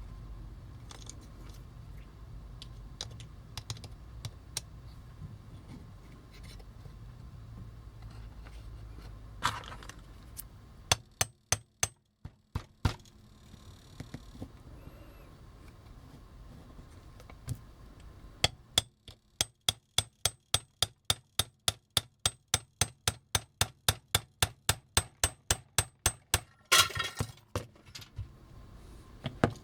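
Small hammer tapping a safety punch to drive a pin out of a vintage Transformers toy, in sharp, ringing metallic taps: a short quick run, then a long even series of about three to four taps a second. There is a brief handling noise near the end.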